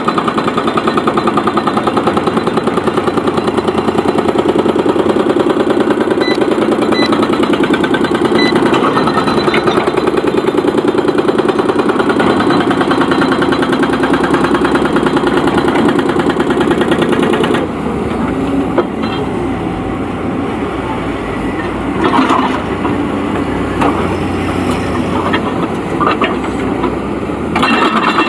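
Excavator diesel engine running steadily with a fast, even pulse. About two-thirds of the way through it drops in level, with a few short knocks, and comes back up near the end.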